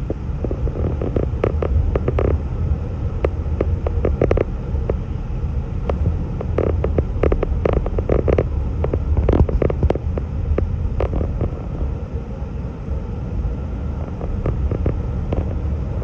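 Steady low rumble of road and engine noise heard from inside a car driving close behind heavy salt-spreading snowplow trucks on a wet road, with scattered short ticks and clicks through roughly the first two-thirds.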